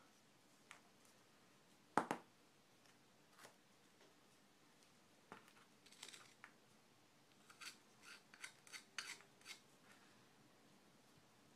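Faint, scattered scrapes and clicks of a thin metal tool scraping caked oil-and-sand grime off a metal center stand mounting bracket, with one sharp click about two seconds in and a quick run of scrapes later on.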